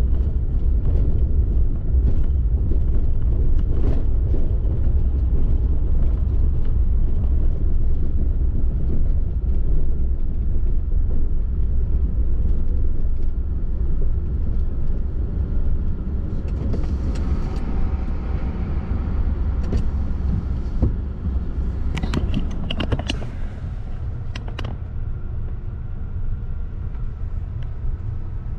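A vehicle driving at road speed: a steady low rumble of engine and road noise. A brief hiss comes about two-thirds of the way through, followed shortly by a few sharp clicks.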